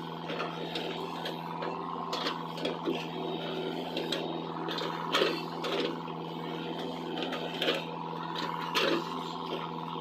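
XCMG mini excavator's engine running at a steady pitch, with irregular knocks and scrapes from the digging work, the loudest about five and nine seconds in.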